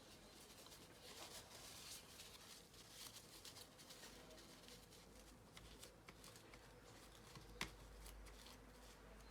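Faint rustling and light scraping of a paper towel wiping old thermal paste off a laptop processor chip, with one sharp click about three-quarters of the way through.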